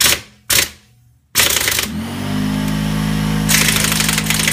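Pneumatic impact wrench on a locking lug nut: two short blips of the trigger, then about a second and a half in it starts hammering steadily, harder near the end. Beneath it, from about two seconds in, the Kobalt 3-gallon pancake air compressor's motor runs with a steady low hum.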